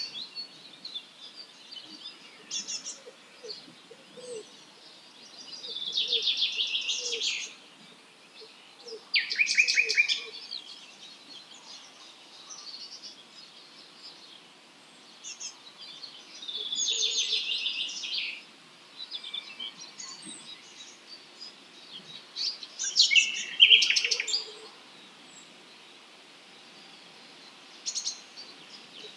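Wild songbirds singing at dawn: a loud, high-pitched song phrase of about a second and a half comes every five or six seconds, four times, with quieter short chirps from other birds in between.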